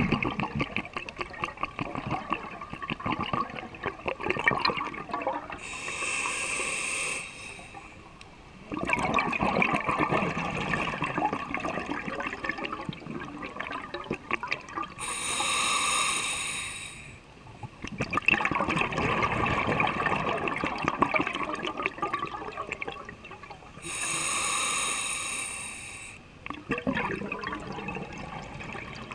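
Scuba diver breathing through a regulator: three steady hissing inhales, about nine seconds apart, each followed by several seconds of bubbling from the exhaled air.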